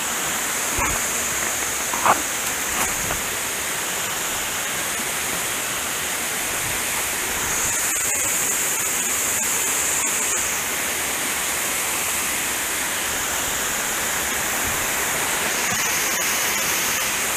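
Steady rush of a small mountain stream and waterfall running over rocks, with a few light knocks in the first three seconds.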